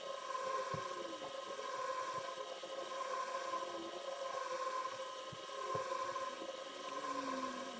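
A steady hum and hiss, with a few faint clicks and scrapes from hand work on a car's fog light housing inside the front bumper.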